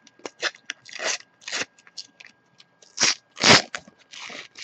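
A paper sticker packet being torn open and its wrapper crinkled: a run of irregular crackly rustles, the loudest about three and a half seconds in.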